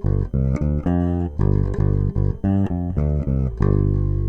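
A short guitar-and-bass music riff of quick plucked notes, ending about three and a half seconds in on a held chord that rings on.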